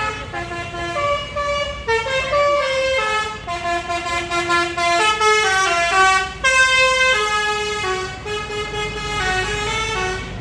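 Indonesian 'telolet' bus horn, a multi-tone horn playing a melody of stepped notes, like a song, over a low engine rumble.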